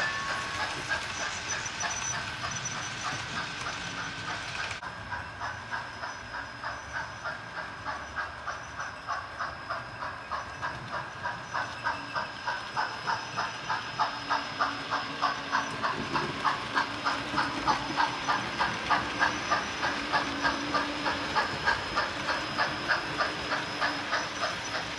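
Model steam locomotive's sound unit chuffing steadily, about three chuffs a second, with a hiss of steam underneath.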